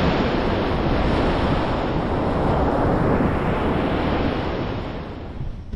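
Surf breaking and washing up on a sandy beach: a steady rush of water, with wind on the microphone. It fades down near the end.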